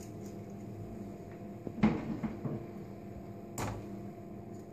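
Kitchen utensils being handled: a short cluster of knocks and clatter about two seconds in, then one sharp knock near the end, over a steady low hum.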